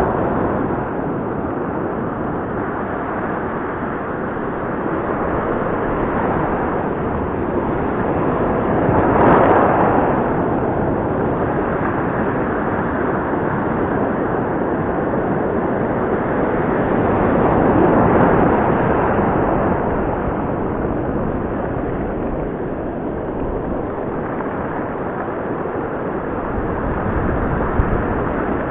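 Ocean surf washing up a dark sand beach close by: a steady rushing, swelling louder twice as waves break and run up the shore, about nine and eighteen seconds in.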